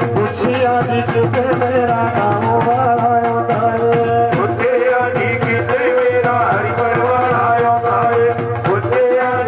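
Live Punjabi devotional folk music: steady held notes under a fast, regular jingling rattle beat with drum. A singer's voice comes in about halfway.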